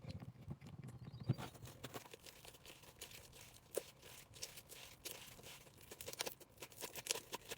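Homemade slime being kneaded and stretched by hand with lotion worked in, giving irregular small sticky clicks and crackles.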